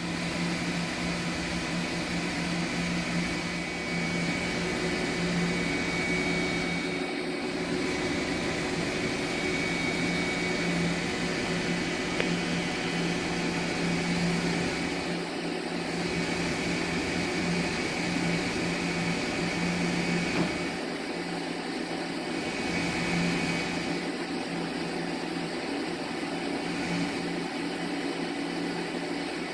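2008 Machining Systems HMC-100 CNC horizontal machining center running under power: a steady mechanical hum with a faint high whine that comes and goes every few seconds.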